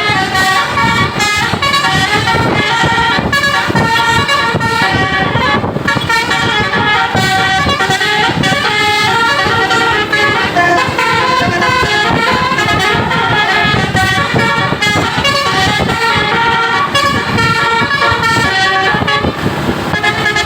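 Bus 'telolet basuri' multi-tone musical air horns playing a fast melody, note after note, over a steady low rumble.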